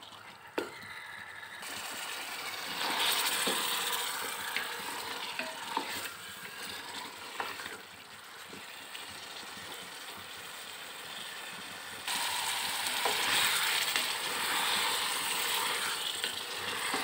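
Chicken pieces sizzling as they fry in tomato-onion masala in a steel pot over a high flame, stirred with a wooden spoon, with a few light knocks of the spoon against the pot. The sizzle grows louder about three seconds in, and again suddenly about twelve seconds in.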